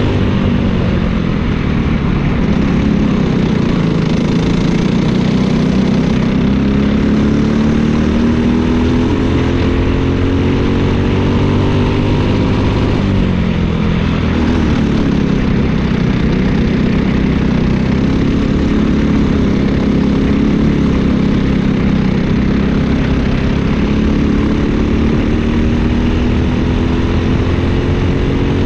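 Briggs & Stratton LO206 kart engine, a single-cylinder four-stroke, running under racing load. Its pitch climbs steadily along the straights, drops sharply about halfway through as the kart slows for a corner, then climbs again.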